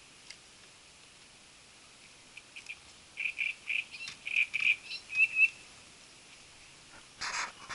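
A reed warbler singing: a run of short, harsh chirps for about three seconds, ending in a quick trill. A brief rustling noise follows near the end.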